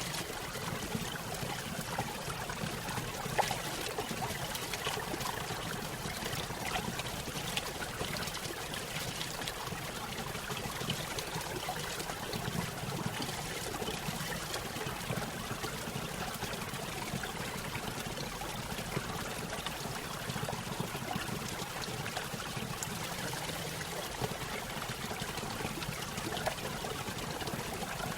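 Running water trickling and splashing steadily, with many small splashes throughout.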